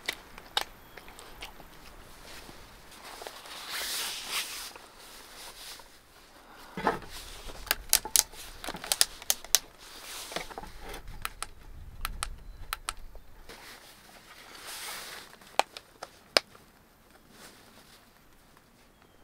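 Sharp plastic clicks and snaps from handling a Klarus CL2 folding camp light: its light panels being swung out and its button pressed. The clicks come in a quick cluster about eight to ten seconds in and a couple more around sixteen seconds, with soft rustling between.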